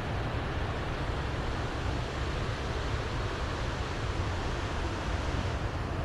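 Steady rushing of a fast mountain river running white over rocks, a continuous even roar.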